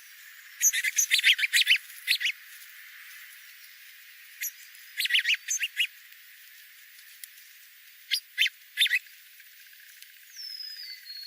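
Wild birds chirping in three quick bursts of sharp, high calls, with a short falling whistle near the end.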